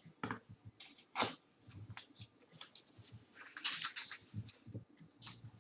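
Trading cards and clear plastic card holders being handled: a run of short crinkly rustles and light clicks, busiest a little past the middle.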